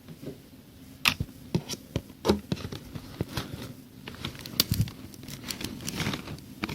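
A knife cutting the seal on a cardboard box: irregular sharp clicks, taps and short scrapes of the blade against the cardboard and tape.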